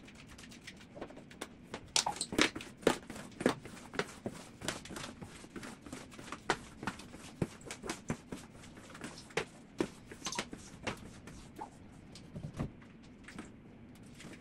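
Irregular clicks, taps and knocks of someone moving about on a wet tiled kitchen floor: sandal footsteps and cleaning gear, a floor squeegee and cloth, being handled. The knocks come every second or so and are loudest about two to three and a half seconds in.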